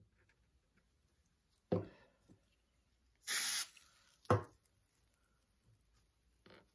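Quiet workbench handling while CA glue is worked into a plywood tile pattern: two light knocks, about two and four seconds in, with a short hiss of about half a second between them.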